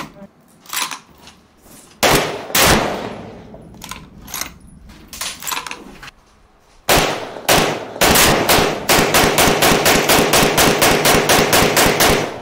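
Rifle gunshots on a covered firing line: two sharp reports about 2 s in and two more near 7 s, then a rapid string of shots, about six a second, to the end.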